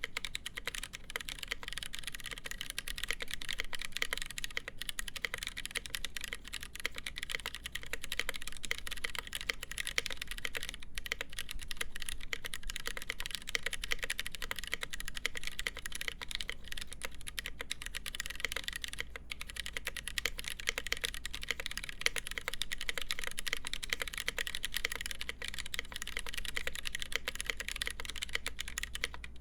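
Continuous fast typing on a mechanical keyboard with lubed Gateron Brown tactile switches, a full polycarbonate plate and GMK keycaps: a dense run of key clacks with a few brief pauses.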